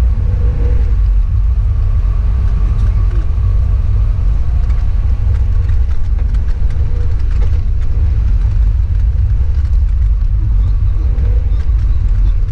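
Steady low rumble of a car's engine and tyres on a snowy road, heard from inside the cabin while driving.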